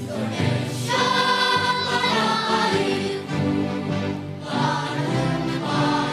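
Elementary-school children's choir singing held notes in unison over instrumental accompaniment, amplified through stage microphones in a large hall.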